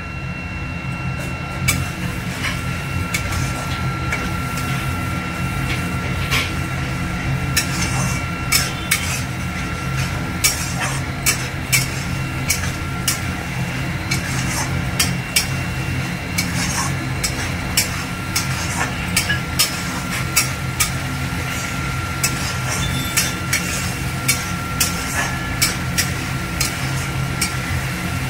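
Steel spatula stirring and scraping a yogurt gravy in a metal kadai, its blade knocking against the pan in frequent sharp clicks. A steady hum runs underneath.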